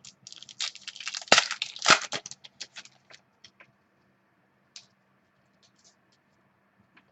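A foil trading-card pack wrapper being torn open and crinkled, with cards being handled; dense crackling for the first few seconds with two sharper snaps, then a few scattered clicks.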